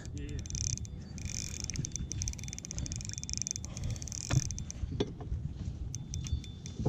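Fishing reel being cranked to play a hooked bass on light line: a soft whir over a low rumble, with a few light clicks toward the end.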